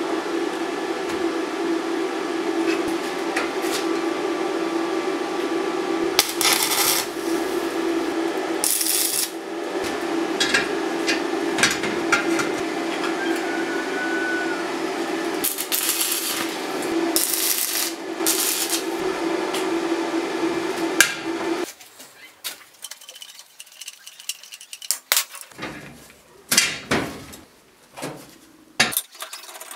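A power tool's motor running steadily with intermittent scraping, cutting off abruptly about 22 seconds in; after that, scattered clinks and knocks of metal parts being handled.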